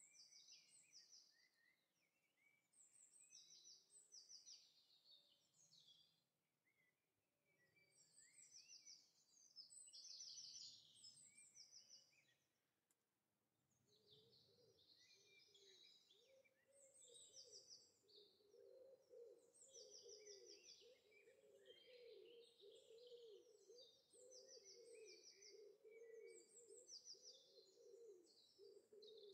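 Faint birdsong ambience: repeated short, high chirps and trills. About halfway through, a lower, wavering call joins in underneath and carries on.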